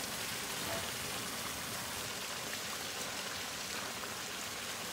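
Steady, even hiss from a wok of green chili coconut-milk broth cooking over a gas burner as raw chicken pieces are added.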